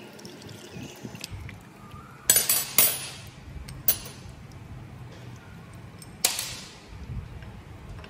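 Four sharp metal clinks with a brief ring, two close together about two seconds in, then one near four seconds and one near six, from a spanner and cover parts being handled as the oil filter cover of a motorcycle engine is taken off.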